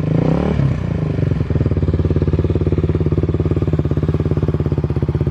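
Suzuki 250SB motard's single-cylinder four-stroke engine, breathing through a titanium aftermarket silencer: a throttle blip rises and falls away in the first second or so, then the engine settles into a steady, even idle.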